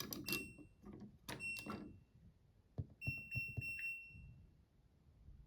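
Washing machine control panel beeping as its buttons are pressed and held: a short beep at the start, another about a second in, then a longer beep about three seconds in with button clicks around it. The beeps signal that the child control lock is being switched off.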